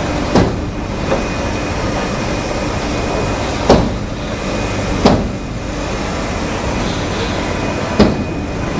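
Steady noise of a large workshop hall, broken by four sharp knocks at uneven intervals, with a lighter knock about a second in.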